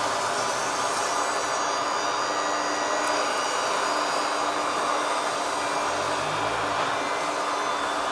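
Radio-controlled model construction trucks' electric motors and gearboxes whirring steadily, with a high, thin whine over a noisy hum.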